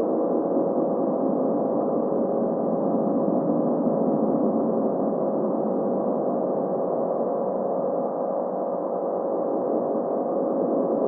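Steady, resonant ambient drone of the 'space sounds' kind: several held, gong-like tones over a grainy low hum, unchanging throughout, with no beat or strikes.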